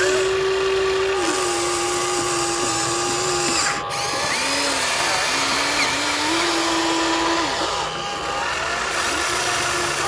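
Small electric motor of a toy vehicle whining, its pitch sagging and stepping back up several times, with fainter higher steady tones alongside.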